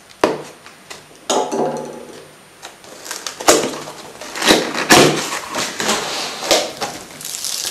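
Cardboard shipping box being opened by hand: a sharp knock, a scrape, then a string of knocks and rustling cardboard as the flaps and lid are pulled open on a wooden table.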